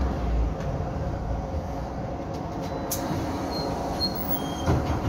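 Cabin sound of a VMZ-5298.01 Avangard trolleybus moving slowly: a steady hum with faint running tones and rattle. There is a sharp click about three seconds in and a knock near the end.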